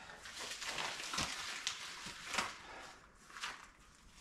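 Rubber gloves being pulled onto the hands: rustling and crinkling, with a few short, sharp snaps.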